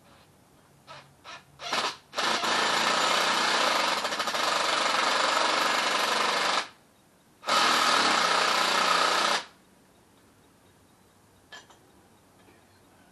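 Hammer drill boring into a concrete wall, likely for a handrail bracket's anchors: a few short blips on the trigger, then a long run of about four seconds, a brief stop, and a second run of about two seconds.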